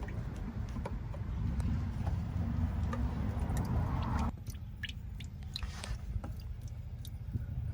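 Small clicks and scrapes of a billet drain plug being fitted by hand into a diesel truck's fuel housing, over a low rumble that stops abruptly a little past halfway.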